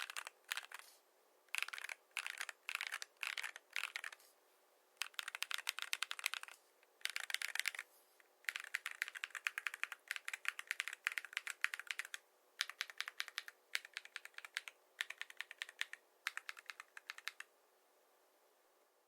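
Typing on a mechanical keyboard with Akko V3 Cream Blue Pro tactile switches and PBT keycaps. The keystrokes come in quick runs with short pauses between them, and they stop shortly before the end.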